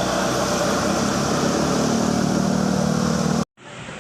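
Bus engine running loud, its low note rising as it accelerates, then cut off suddenly about three and a half seconds in.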